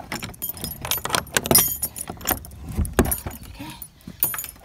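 A bunch of metal keys on a ring and chain jangling and clicking against a padlock as it is worked open one-handed, with a low knock about three seconds in.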